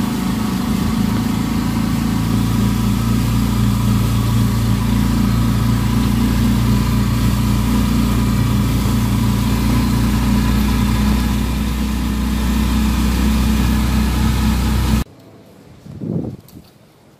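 Engine of a small public passenger vehicle running steadily, heard from inside among the passengers. It cuts off suddenly near the end, leaving a much quieter background with one brief, short sound.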